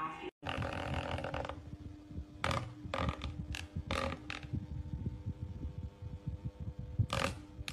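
Electric desk fan running: a steady motor hum over the rush of air, with several sharp ticks and taps through it.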